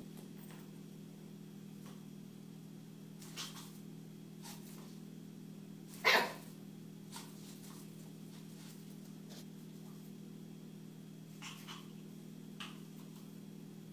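A dog playing, with a few faint short sounds and one louder bark about six seconds in, over a steady low hum.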